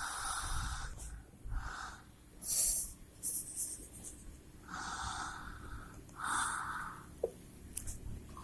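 A sleeping person snoring: rasping snores lasting under a second, a few seconds apart, with breathy hissing breaths between them.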